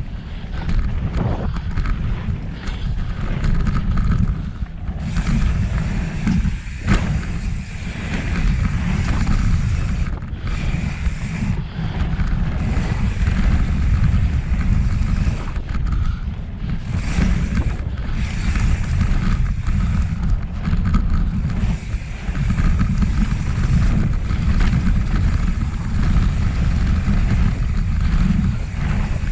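Wind rumbling over the microphone of a ride camera on a mountain bike at speed on a dirt flow trail, mixed with the hiss of the tyres rolling on dirt. One sharp click comes about seven seconds in.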